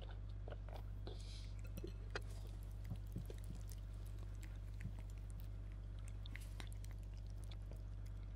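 Quiet chewing of a mouthful of cereal, with a few faint clicks of a metal spoon against a ceramic bowl in the first half, over a steady low room hum.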